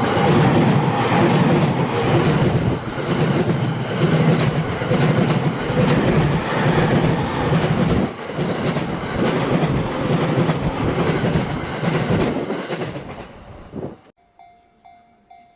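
Electric train on the JR Tokaido Main Line passing close by, its wheels clattering over the rail joints in a steady rhythm. The noise drops away sharply about fourteen seconds in, leaving a level-crossing bell ringing in even strokes.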